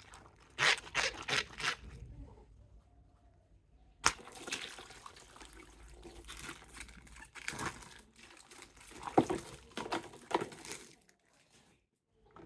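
Plastic toy packaging being handled, crinkled and torn open in irregular bursts, with a few sharp crackles.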